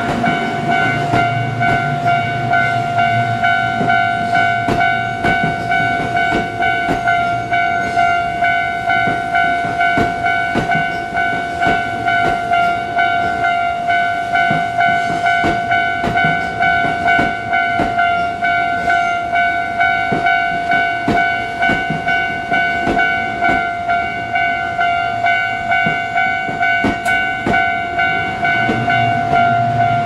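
Japanese railroad crossing warning bell ringing steadily in a fast repeating pattern, while a Kintetsu Hinotori limited express train runs through the crossing with many sharp wheel clicks over the rail joints.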